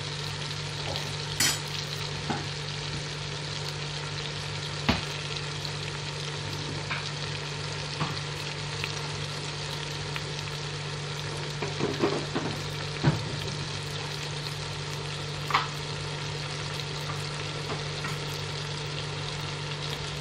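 Fish, tomato and carrot biryani base frying in oil in a cooking pot: a steady sizzle while it is stirred, with a few sharp clicks scattered through, the loudest around the middle and near the end.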